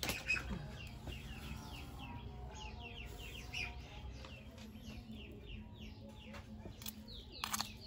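Chickens peeping and clucking: a steady run of short, high, falling peeps, several a second. A sharp knock sounds at the very start, and another clatter comes about seven and a half seconds in.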